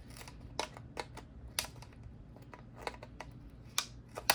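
Irregular small clicks and taps of plastic and metal parts being handled and pried on a router's circuit board, with a sharper click near the end.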